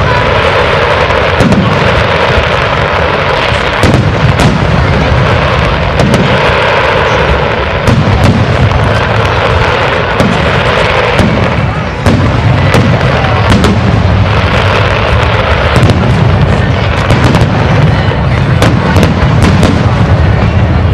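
Aerial fireworks shells bursting one after another in a loud, unbroken barrage of booms, with a dense crackle from glittering stars between them.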